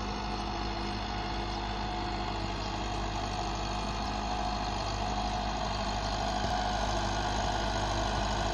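Massey Ferguson 375 tractor's four-cylinder diesel engine running steadily as it pulls a cultivator through the soil, growing slowly louder as it approaches.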